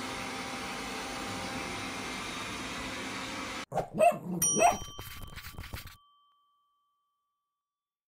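Robot vacuum cleaner running with a steady whir, cut off suddenly a little over halfway through. It is followed by a short cartoon sound effect of two dog barks and a bell-like ding that rings on briefly, louder than the vacuum.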